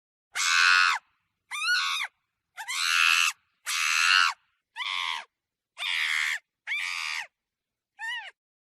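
Monkey giving eight short, high-pitched screaming calls about a second apart, each ending in silence; the last, near the end, is shorter and rises then falls in pitch.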